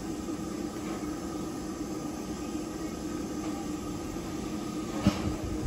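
Steady hiss and hum of a steam train standing at the platform, with one sharp knock about five seconds in.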